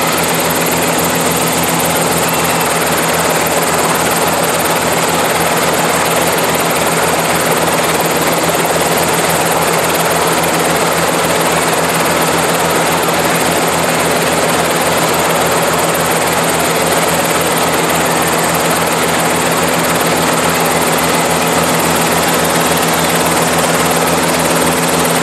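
Small helicopter running on the ground with its rotor turning: a fast, even beat of the blades over a steady engine whine, unbroken and loud.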